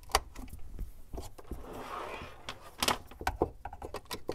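Boxes and packaging being handled and cleared off a desk: a series of knocks and clicks, with a brief rustling slide about two seconds in.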